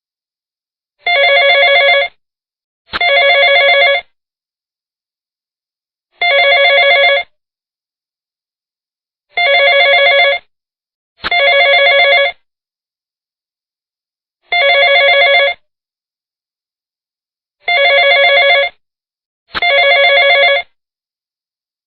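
Telephone ringing sound effect: trilling rings about a second long, coming in alternating pairs and single rings with silent gaps between them.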